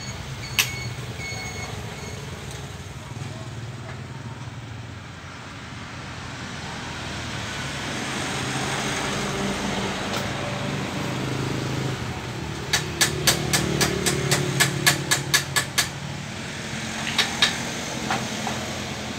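A vehicle engine running nearby with its reversing beeper sounding for the first couple of seconds. Later comes a rapid run of about fifteen sharp taps, roughly four a second, with a few more taps near the end.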